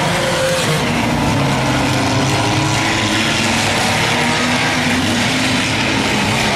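Engines of several claimer-class race cars running at once: a steady mix of overlapping engine tones, with no single car standing out.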